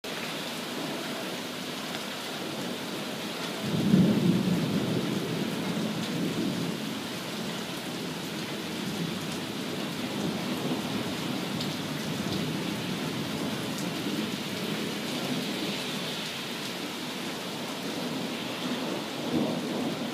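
Heavy rain falling steadily on a lawn and brick patio. About four seconds in, a loud clap of thunder rumbles on for several seconds, and a smaller rumble of thunder comes near the end.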